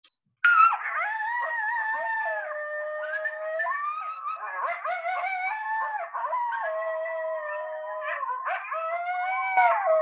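Recording of a group of coyotes howling together, starting about half a second in: several voices overlap in long, wavering howls that slide up and down in pitch.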